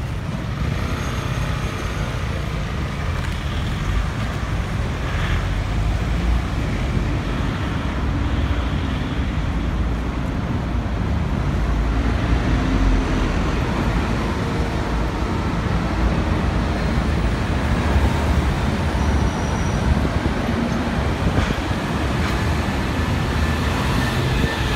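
Steady road traffic on a busy high street: cars, vans and buses running and passing close by, with a deep continuous rumble.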